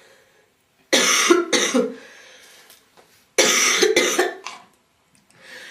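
A girl coughing in two short bouts, the first about a second in and the second a little past the middle, each made of two or three coughs in quick succession.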